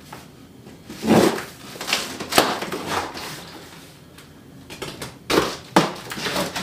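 A knife slitting the packing tape on a large cardboard box, then the cardboard flaps being pulled open. Scraping, crackling strokes in the first half, and a few sharper knocks and rustles near the end.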